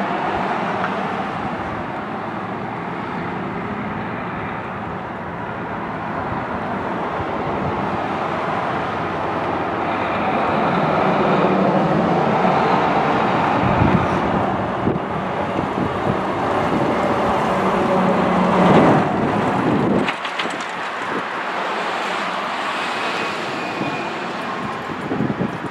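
Volvo semi-truck's diesel engine and tyres passing close by, building to their loudest about three-quarters of the way in and then falling off suddenly, over steady street traffic.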